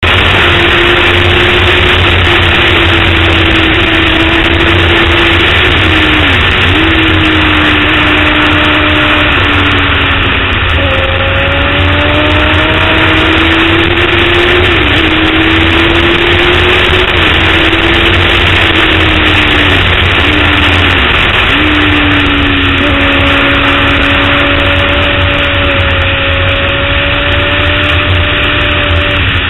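Motorcycle engine running hard at track speed under a loud, steady rush of wind noise over the microphone. The engine note climbs slowly and several times dips sharply and picks up again as the rider works the throttle and gears.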